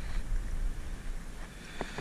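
Wind rumbling on the microphone, with one sharp click near the end.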